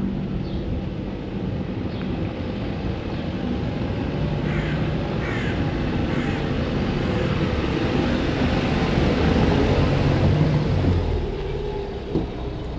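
A motor vehicle's low engine rumble, growing louder until about ten seconds in and then fading as it passes. A few short bird calls sound in the first half.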